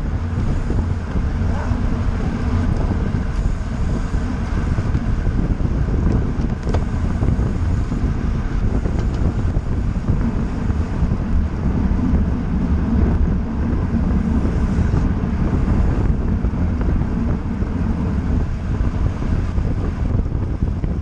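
Steady wind rushing over the microphone of an action camera on a road bicycle moving at race speed, heaviest in the low end.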